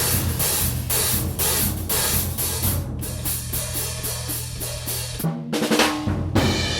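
A drum kit is played in a steady groove: the new 15-inch Red Cymbals hi-hats (flat bottom cymbal) over bass drum and snare drums. The hats and drums pause briefly about five seconds in, then carry on.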